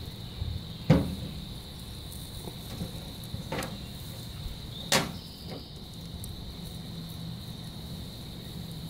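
Steady high-pitched insect drone with a low hum beneath it, broken by a few sharp clicks and knocks, the loudest about a second in and about five seconds in.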